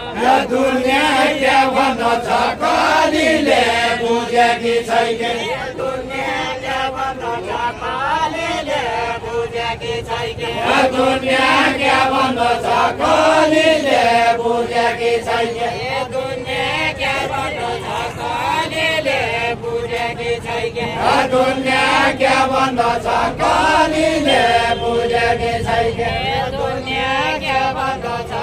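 Voices singing a Deuda folk song in long, chant-like melodic phrases, the verse repeated over and over.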